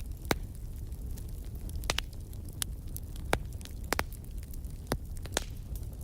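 Wood fire crackling in a fireplace: irregular sharp pops, a few of them loud, among fainter crackles over a low steady rumble.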